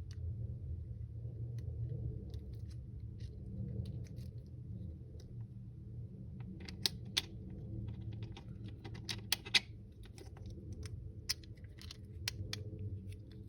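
Small sharp clicks and taps of a Hans anchor post and its metal screw being handled and seated against a composite helmet shell, scattered in pairs and clusters from about halfway through, over a low steady hum.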